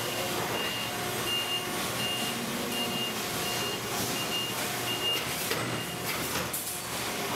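Forklift reversing alarm beeping, about eight high beeps in a row that stop after about five seconds, over the steady noise of factory machinery, with a few knocks near the end.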